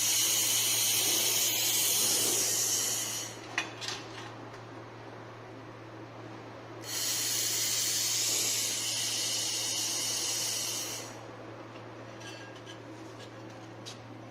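Handheld fiber laser welder firing in two passes of about three and four seconds, each a loud hiss. A steady low hum from the machine runs underneath, with a couple of sharp ticks after the first pass.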